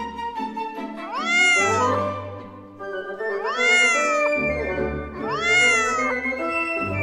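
A calico British Shorthair cat meowing three times, each a long call that rises and then falls in pitch, over background music.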